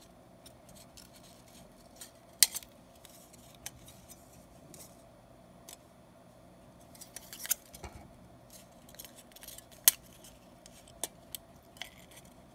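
Scissors snipping thin aluminium beer-can sheet, trimming the petals of a can flower: a few scattered sharp snips, the loudest about two and a half seconds in and near ten seconds, with a quick run of smaller snips a little past the middle.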